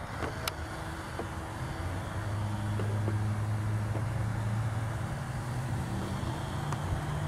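Motorized toy outboard motor of a 1993 Action Man Mission Raft running in the water with a low, steady hum, growing louder as the raft passes close and fading again near the end.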